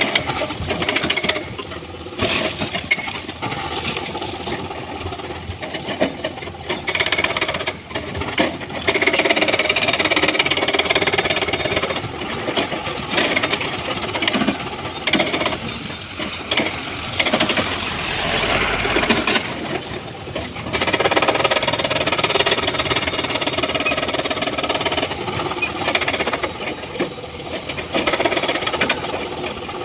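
Hydraulic excavator working under load: its diesel engine running, with stones scraping and clattering irregularly as rock is loaded into a dump truck.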